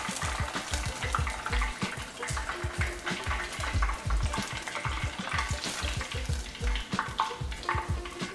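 Battered chicken wings deep-frying in 350-degree oil in a Fry Daddy electric deep fryer: a steady crackling sizzle of many small pops, with low thumps recurring throughout.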